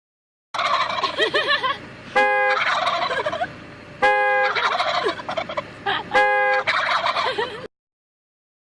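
Turkeys gobbling in rapid warbling bursts. A loud steady tone sounds three times, about two seconds apart, and each is followed by more gobbling, then the sound cuts off suddenly.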